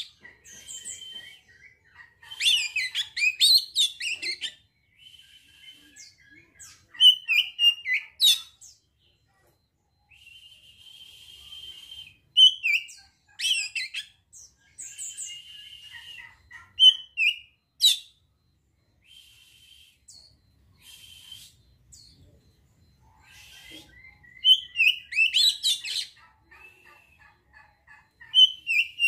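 Oriental magpie-robin (kacer) singing: bursts of rapid, varied whistles and chirps lasting a second or two each, separated by short pauses, with a few long held whistled notes.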